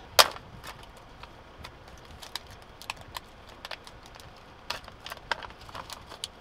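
Clear plastic blister pack of stick-on blind-spot mirrors being handled and pried open: one sharp snap just after the start, then scattered light plastic clicks and crackles that come faster over the last couple of seconds.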